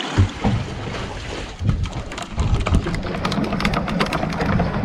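Water splashing and lapping against a small boat's hull with wind rumble on the microphone, and a run of sharp crackling drips and splashes through the middle.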